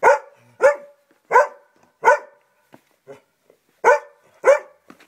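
A Vizsla dog barking in play: six loud, short barks, four in a steady run about two-thirds of a second apart, then a pause and two more.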